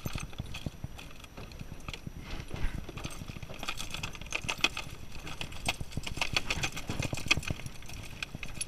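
Close handling noise of a caught European perch held in the hand: irregular clicks, taps and light scrapes, busiest through the middle few seconds.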